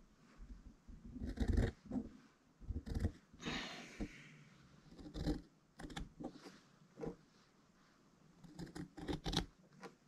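Quilt fabric and batting being handled and trimmed with scissors: rustling, scattered light knocks, and a cluster of sharp clicks near the end.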